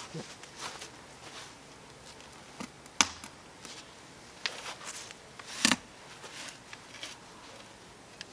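A steel garden spade cutting into lawn turf and soil, with scattered scraping and crunching strokes and a sharp knock about three seconds in.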